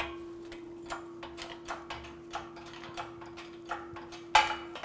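Hand-pumped hydraulic bottle jack on a shop press clicking about three times a second as it presses a wheel bearing out of a steering knuckle, with a sharper knock near the end. A faint steady hum runs underneath.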